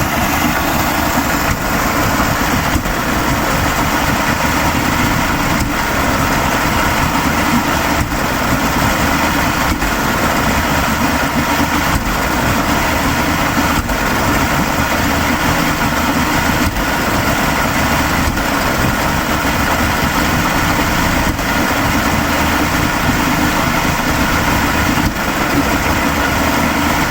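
1987 Mercury 70 hp three-cylinder two-stroke outboard running steadily at low speed. The owner reports a misfire and smoky running that new ignition parts and rebuilt carburettors have not cured.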